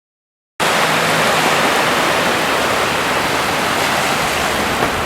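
Sea surf washing onto the beach: a loud, steady rush that starts about half a second in.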